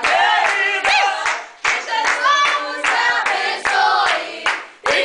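A group of family members singing a birthday song together to rhythmic hand clapping, with short breaks between phrases.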